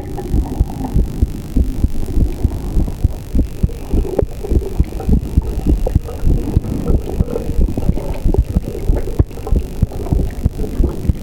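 Human heartbeat recorded up against the chest: a steady run of low thuds, a few a second, with a few sharper clicks.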